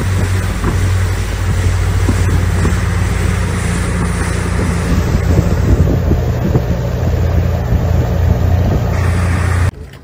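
Boat engine running with a steady low drone, under wind buffeting the microphone and rushing water. It cuts off abruptly near the end.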